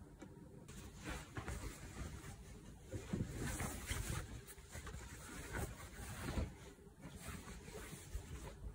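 Fabric rustling and soft handling thumps as a shirt is spread out on an ironing board, loudest about three seconds in and again near six and a half seconds.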